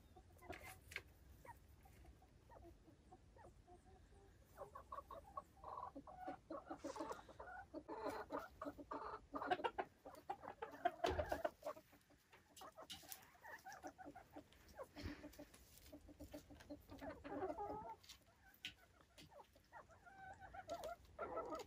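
Silkie chickens clucking in runs of quick, short notes, with quieter pauses between the runs.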